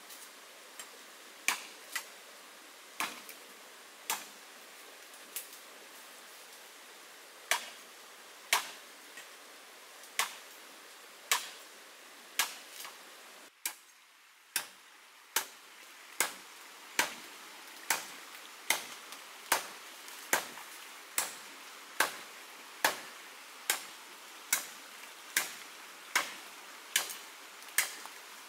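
Machete blows chopping into a standing green bamboo culm, each a sharp crack. The strikes are scattered over the first half, then come in a steady run a little over one a second.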